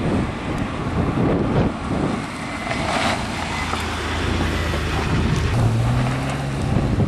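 Holden VN Commodore's V6 running while the car is driven, mixed with road and wind noise; a steady low engine drone comes through more clearly from about four seconds in.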